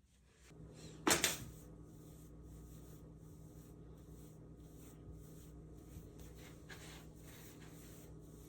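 A sharp click about a second in, over a faint steady hum that sets in just before it.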